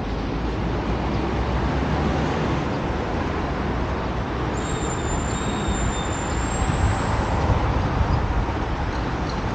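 Steady street noise of road traffic, heaviest in the low rumble, with a thin high-pitched whine for about three seconds midway.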